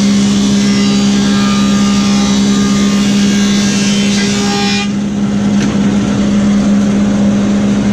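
Woodmaster 725 planer with a helical cutterhead running while a hardwood board feeds through. The high cutting noise stops abruptly about five seconds in as the board clears the cutterhead, leaving the steady motor hum.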